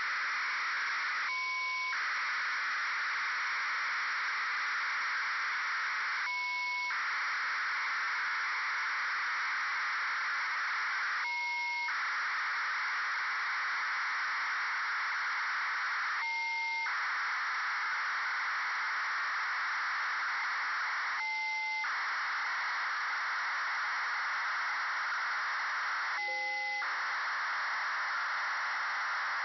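FUNcube-1 (AO-73) satellite BPSK telemetry demodulated in SDR# from a HackRF: a steady, hiss-like data signal. About every five seconds it breaks briefly into a pair of tones. The tones come a little lower in pitch each time as the satellite's Doppler shift changes.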